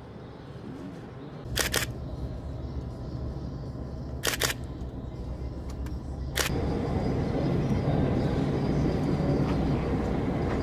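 Low rumble of the Boeing 757-200's jet engines, stepping up about a second and a half in and louder again about six seconds in. Three sharp camera shutter clicks come about two, four and six seconds in.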